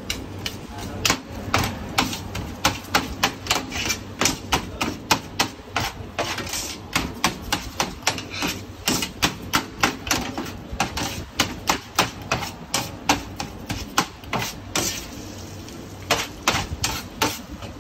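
Metal spatula and blade chopping and tapping shaved shawarma chicken on a steel tray, a rapid uneven run of sharp metallic clacks, about two to three a second.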